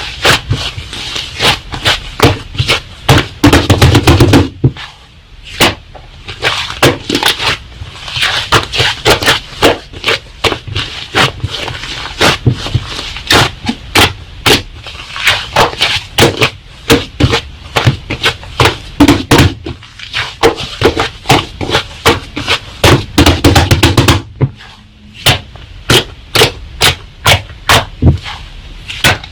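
Slime being squeezed and poked by hand, giving a dense run of sharp pops and clicks. Quick, loud flurries of pops come about three seconds in and again near the end, each followed by a short lull.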